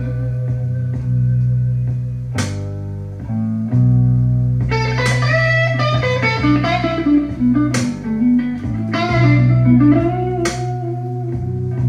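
Slow blues-rock instrumental section played back through Pioneer HPM-100 studio monitor speakers: a bent electric-guitar lead over a steady bass line, with sparse drum hits every two to three seconds.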